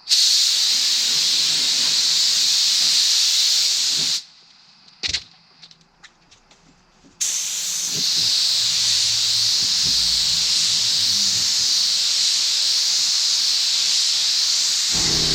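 Paint spray gun spraying automotive clear coat as a light first tack coat: a steady hiss of air and atomised clear for about four seconds, a pause broken by a short click, then a second long spray pass from about seven seconds on. A low hum joins near the end.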